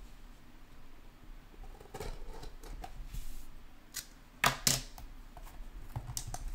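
Shrink-wrapped cardboard trading-card box being slit with a utility knife and handled: light scratching and taps, two sharp clicks a little after halfway, and the plastic wrap starting to crinkle near the end.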